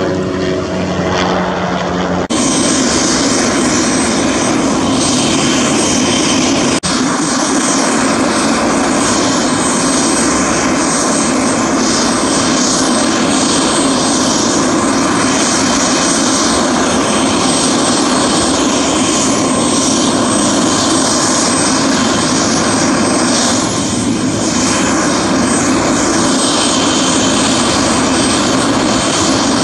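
Helicopter flying overhead with a steady humming tone from its rotor and engine; about two seconds in it cuts to a steady, loud helicopter engine noise close by, with a faint high whine.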